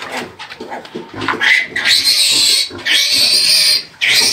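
Newborn piglet squealing while held for handling, two long, loud, high squeals starting about two seconds in.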